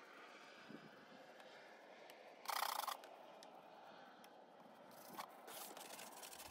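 Detailing brushes scrubbing foamed plastic engine-bay surfaces: faint bristle brushing with small ticks, and one louder half-second scrubbing stroke about two and a half seconds in.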